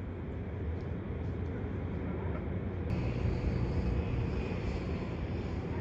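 Amtrak California passenger train standing at the platform: the steady low rumble of its diesel locomotive running. About three seconds in, a steady hiss joins suddenly and the rumble grows slightly louder.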